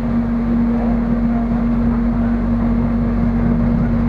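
Cabin noise inside a moving electric airport train: a steady running rumble with a constant low hum.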